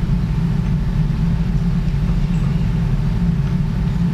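Steady low mechanical hum of operating-room equipment, unchanging throughout.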